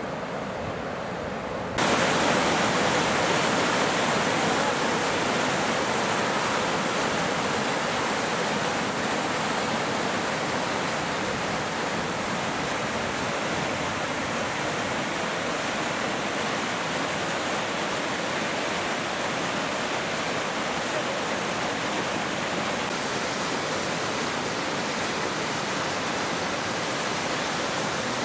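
The Guadiana river in flood, its brown water churning through rapids: a steady, loud rush of water that steps up sharply and grows brighter about two seconds in, then holds.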